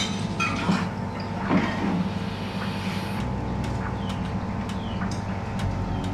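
Steady electrical and mechanical hum of electroplating equipment, with a few clinks and knocks in the first couple of seconds.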